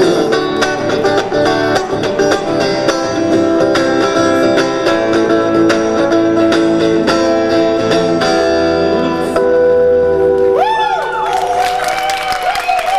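Electric guitar through an amplifier, picking a fast run of notes in an instrumental passage between sung verses. About eleven seconds in, the picking gives way to one long held note that wavers up and down.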